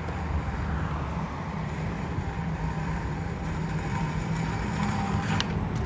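Steady low rumble of road traffic, with a light click near the end and a sharp skateboard knock right at the very end.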